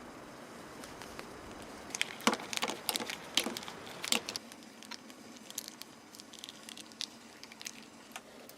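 Dry wood crackling and snapping in a quick irregular run of sharp cracks, densest a couple of seconds in and then thinning out.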